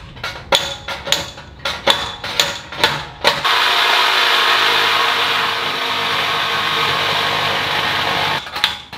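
Hammer blows on a steel fender flare, about two or three a second, reshaping an edge that welding heat has made overlap. A little over three seconds in, a handheld power tool starts and runs steadily on the flare for about five seconds, then stops.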